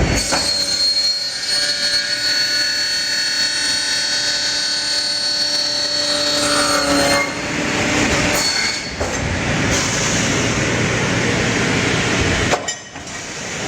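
Automatic 90-degree cut-off saw's circular blade cutting through an aluminium extrusion, with a steady high-pitched ringing whine. The sound shifts about seven seconds in and dips briefly near the end.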